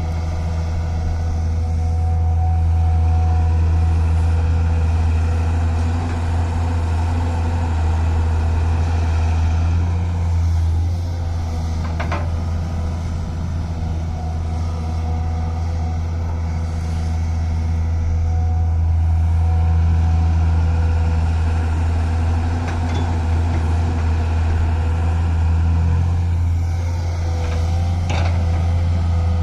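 Excavator-loader's diesel engine running steadily at a constant speed, with a couple of brief sharp squeaks or clicks near the middle and near the end.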